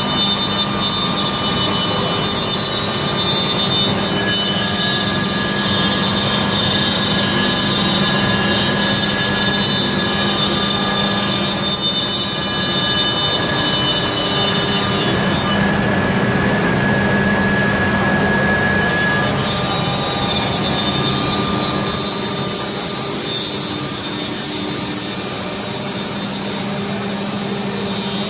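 Kolmag M300 nesting CNC router machining a wood panel: a steady, high-pitched spindle whine and cutting noise over a steady hum. The high whine drops away for about three seconds midway, then comes back.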